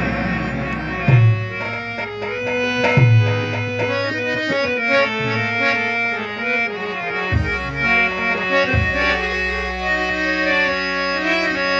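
Instrumental Rajasthani bhajan music: a melody in held, reedy notes over hand-drum beats, with deep drum strokes about every two seconds.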